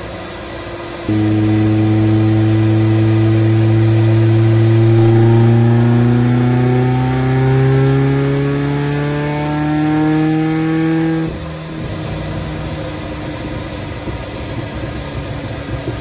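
Supercharged Mazda Miata's 1.8-litre four-cylinder engine making a full-throttle pull on a chassis dyno. It comes in suddenly about a second in, the revs climb steadily for about ten seconds with a faint high whine rising along, then it cuts back abruptly to a lower, steady running sound.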